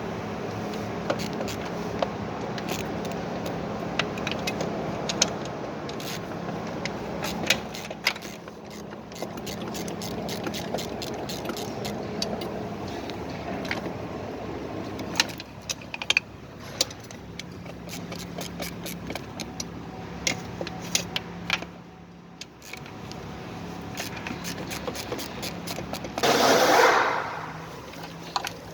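Hand tools and metal engine parts clinking, knocking and scraping during valve lifter work on a GMC V8, over a steady low hum, with a short loud rushing burst near the end.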